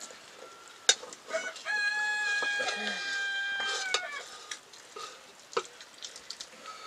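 A rooster crowing once: one long call of about two seconds that drops slightly in pitch as it ends. A sharp clink of a spoon on a steel plate comes about a second in.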